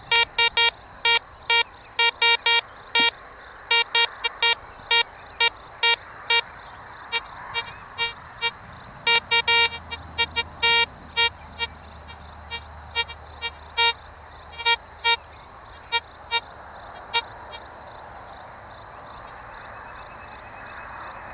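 Metal detector giving short, sharp beeps, several a second at first, then fewer, stopping near the end; it is responding to a stone while being ground-balanced on it.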